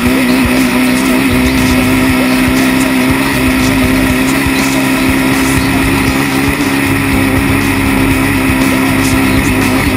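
2002 Yamaha Raptor 660's single-cylinder four-stroke engine running hard at a steady speed, its pitch holding nearly level.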